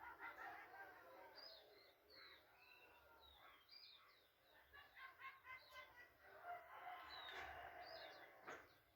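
Faint birds chirping and calling, with short high chirps repeating throughout and busier calling in the second half.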